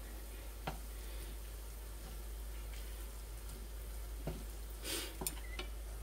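Low, steady sizzling of a stir-fry in a frying pan, with a few light clicks of a utensil against the pan.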